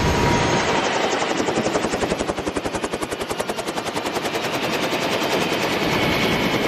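Helicopter main rotor turning on the ground after landing: a rapid, even chop of the blades.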